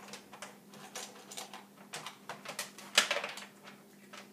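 Small dog chewing dog food: a string of irregular crunches, about two or three a second, with one louder clatter about three seconds in.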